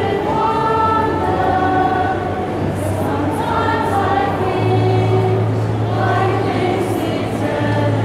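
Mixed staff choir singing a slow ballad, with several voices holding long notes together. A sustained low note sounds underneath and grows stronger about halfway through.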